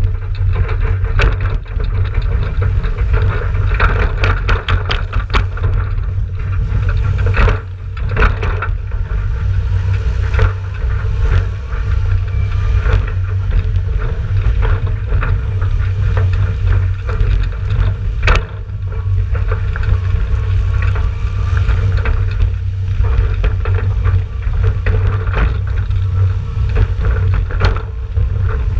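Ford 7000 tractor towing an empty tipping trailer on a wet road: a steady low rumble from the tractor's diesel engine and the tyres, with frequent knocks and rattles from the trailer body, a few of them sharper.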